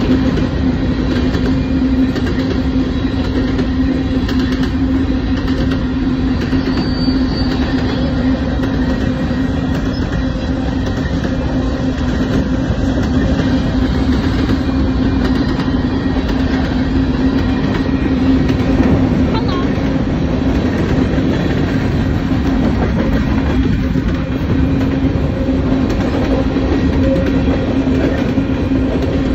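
Freight train's covered hopper cars rolling past a grade crossing: a steady, unbroken rumble of steel wheels on the rails, with a constant low tone running through it.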